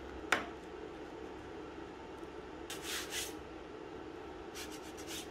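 A sharp click as the metal ring is handled, then two short bursts of a blade scraping on the painted wooden frame board, over a steady low hum.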